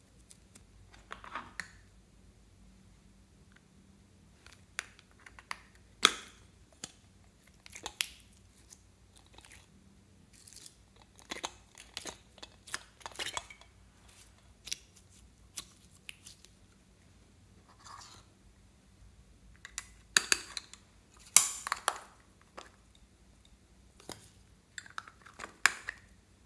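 Hands working slime in a glass bowl: scattered short squishes, clicks and crackles as blobs of slime and clay are pressed into glittery slime and its beads. Near the end, small foam beads are poured in from a plastic cup.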